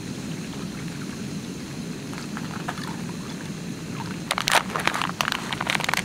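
Water pouring from a bottle into a pan on a camping gas stove, over a steady low rush. About four seconds in, loud irregular crinkling of a plastic noodle packet being handled and opened takes over.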